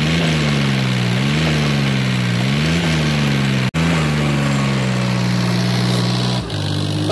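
Diesel farm tractor engine running hard, its speed rising briefly and falling back about every second and a half, then holding steady. The tractor is stuck in a pit with a loaded trolley, and the engine is working to pull it free.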